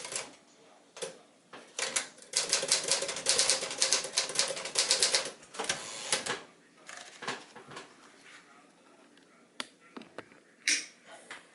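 A Tower Commander portable typewriter (a Smith-Corona Sterling in different bodywork) being typed on. A few scattered keystrokes give way to a fast run of key strikes about two seconds in, lasting some three seconds, then a short burst. After that come only occasional single clicks, with one sharper knock near the end.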